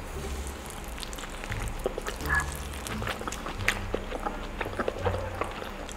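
Close-miked eating: wet chewing and smacking mouth sounds, many quick clicks and squelches in an uneven run, with one brief squeak about two and a half seconds in.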